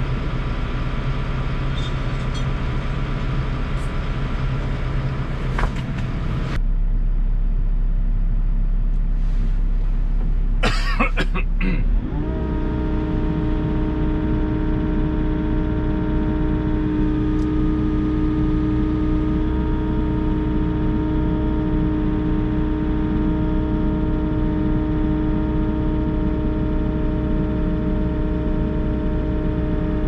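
Volvo EC60E mini excavator's diesel engine running, heard from inside the cab. A few metallic clanks come around eleven seconds, then the engine rises in speed with an upward glide and holds steady at the higher speed.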